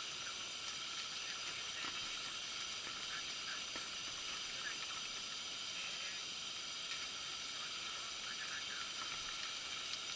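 Steady, even hiss with no change, faint short traces of something higher-pitched now and then behind it.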